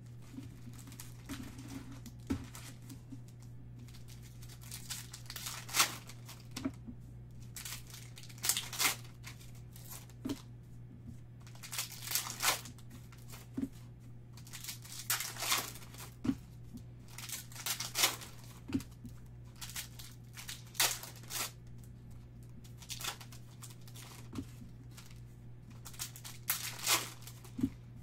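Foil trading-card pack wrappers being crinkled and torn open by hand, one pack after another, in short crackly bursts about every second, over a faint steady low hum.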